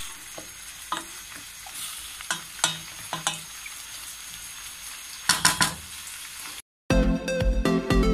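Vegetables sautéing in oil in a pan, sizzling steadily, while a wooden spatula stirs them, knocking and scraping against the pan now and then, with a quick cluster of knocks a little after five seconds. The frying cuts off suddenly near the end, and music starts after a brief silence.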